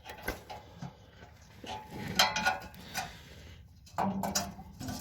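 Scattered metallic clinks and knocks of tools and bolts against the car's exhaust manifold and heat shield as the parts are lined up for bolting, with a louder stretch of handling near the end.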